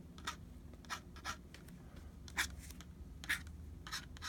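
Pen nib scratching across paper in a handful of short, separate strokes while inking a drawing, over a faint low hum.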